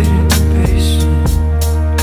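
Song playing for the dance, with a steady drum beat and a deep sustained bass.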